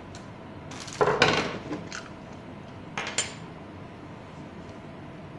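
Metal clatter of a screwdriver and an electromagnetic door lock's metal housing being handled and set down on a wooden desk: a burst of clinks about a second in, lasting about a second, and a shorter pair of clinks about three seconds in.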